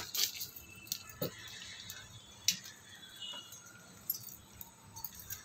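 A few light jingling clinks and taps of a steel kadhai being handled as dry chowmein noodles are laid into its heating water, over faint room noise.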